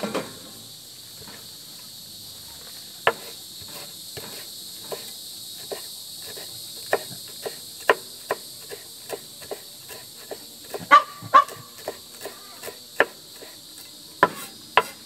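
Chef's knife chopping Italian parsley on a wooden cutting board: irregular sharp taps, one or two a second, a few louder near the end. A steady insect chorus runs underneath.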